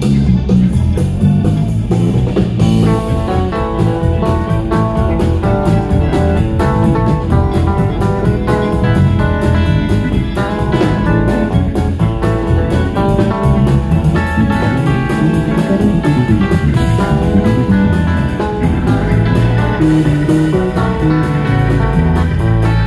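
Live rock band playing: electric bass, electric guitar and drum kit, with the bass strong and low.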